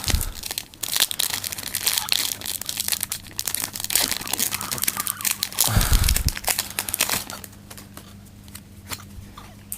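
Pokémon TCG booster pack wrapper being torn open and crinkled, a dense crackle that dies down after about seven seconds, with a dull bump about six seconds in.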